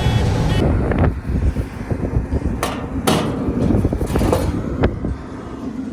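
A low engine rumble under a scatter of sharp, irregular knocks and clatter.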